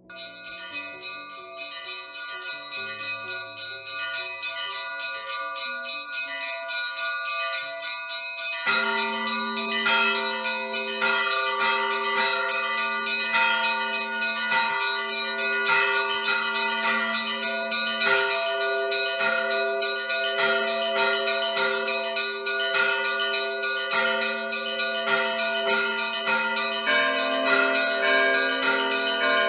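Church bells ringing: many bells struck in quick succession, fading in, with deeper, lower-pitched bells joining about nine seconds in and struck over and over.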